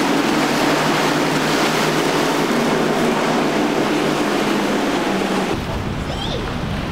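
Twin Mercury 300 hp outboard motors on a Boston Whaler running steadily at speed, with the rush of the hull's spray and wake. About five and a half seconds in it switches abruptly to wind buffeting the microphone over open-sea waves.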